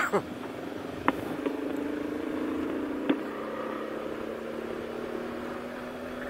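Motorcycle engine running steadily at road speed, heard from the bike with wind noise over the microphone. Faint short clicks come about a second in and again about three seconds in.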